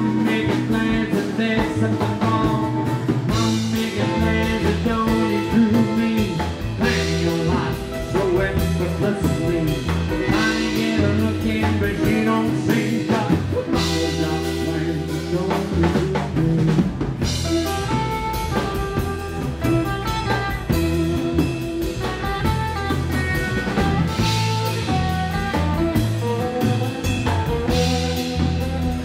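Live rockabilly band playing: electric guitar, acoustic guitar, upright double bass and drum kit together at a steady beat.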